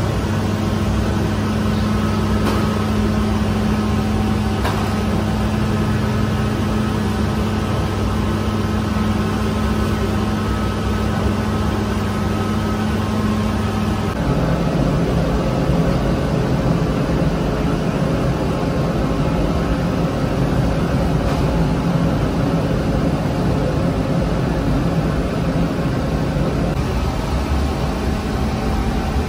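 Steady drone of bakery machinery with a low hum, whose tone changes abruptly about halfway through.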